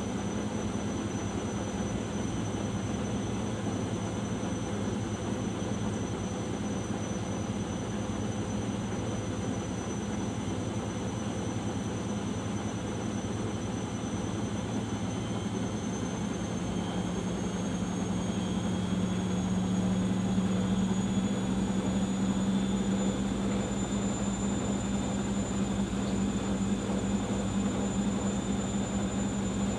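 Arçelik 5083 washing machine spinning in its final spin: a steady drum hum with a high motor whine that rises slowly in pitch from about halfway as the spin speeds up, getting a little louder.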